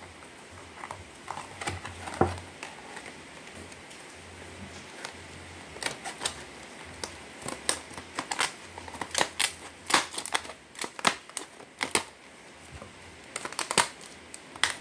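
Scissors cutting through a stiff clear-plastic blister pack: a string of sharp, irregular snips and clicks, sparse at first and coming thick and fast from about six seconds in.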